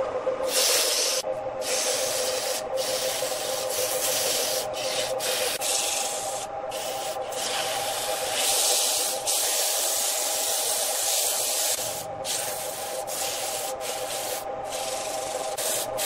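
Sandpaper in a gloved hand pressed against a jackfruit-wood vase spinning on a wood lathe: a steady rushing hiss over the lathe's steady hum, broken by several brief gaps.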